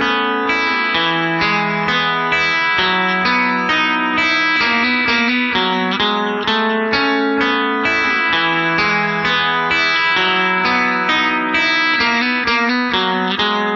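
Background music: a guitar playing a quick run of picked notes, with no singing.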